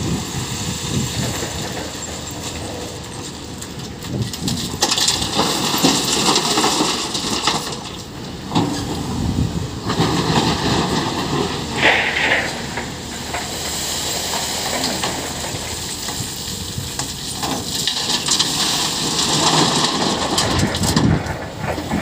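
Caterpillar excavator's diesel engine running under load as it digs broken rock and drops it into a steel dump truck body. Three louder stretches of rumbling, clattering rock break through the steady engine noise, about five seconds in, ten seconds in and near the end.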